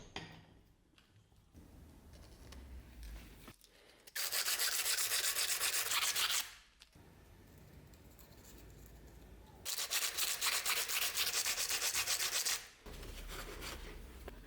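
Sanding: two stretches of rapid, even abrasive strokes, about two and three seconds long, with quieter rubbing between them.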